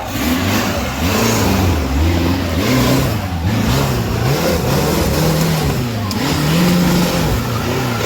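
Off-road 4x4's engine revving up and down over and over, its pitch rising and falling about once a second as the throttle is worked.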